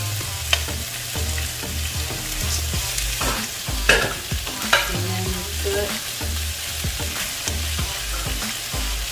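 Frozen edamame, corn and onion sizzling in a nonstick wok while being stirred with a silicone spatula. A few sharp knocks come through the sizzle, the loudest about four seconds in.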